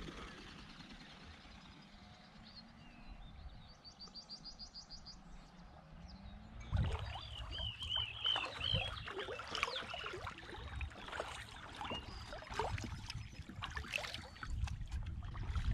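Kayak paddle blades dipping and splashing in the river with a run of water sounds, starting about seven seconds in, with a bird calling in short repeated chirps. Before that it is quieter, with only faint birdsong.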